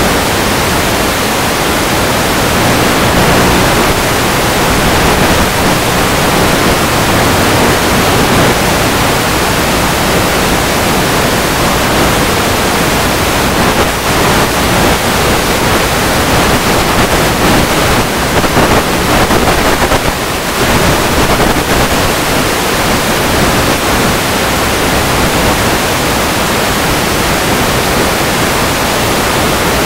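Loud, steady hiss on the audio of the EasyStar 2's onboard FPV camera in flight, with a brief dip about twenty seconds in.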